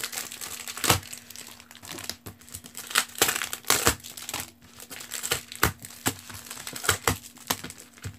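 Plastic multipack wrapping and trading-card packs crinkling and rustling, with irregular sharp crackles and clicks, as the packs are pulled off the cardboard backing board.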